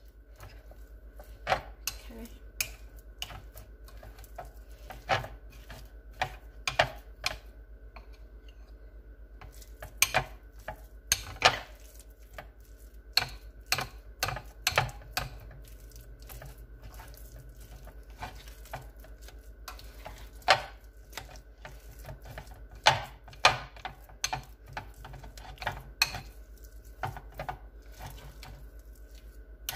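Spoon knocking and scraping against a glass mixing bowl while a thick, sticky mashed-plantain dough is stirred, in irregular clinks, over a faint steady hum.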